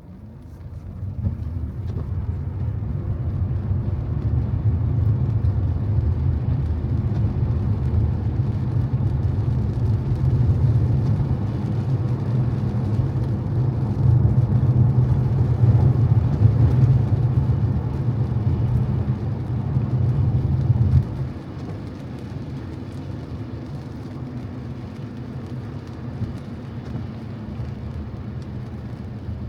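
Car driving on a wet road: a steady low rumble of engine and tyres with a light hiss of rain and spray above it. The rumble swells over the first couple of seconds and drops off suddenly about two-thirds of the way through, leaving a quieter steady road noise.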